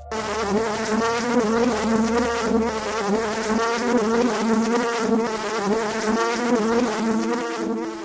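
Bumblebee buzzing, a continuous hum that wavers slightly in pitch.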